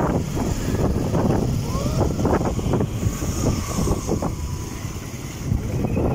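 Road vehicles passing over the bridge: a loud, uneven low rumble of engines and tyres.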